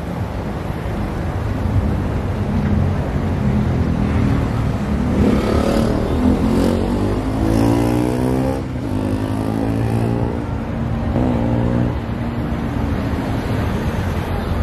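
Road traffic on the bridge, with one vehicle's engine accelerating past, its pitch rising from about five seconds in and fading away after about nine, over a steady low traffic rumble.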